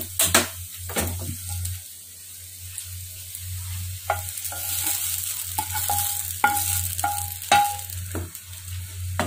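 A spatula scraping fried bitter gourd slices out of a nonstick frying pan into a pan of curry, with about six knocks against the pan from about four seconds in, each making the pan ring briefly. Under it the curry sizzles softly, over a steady low hum.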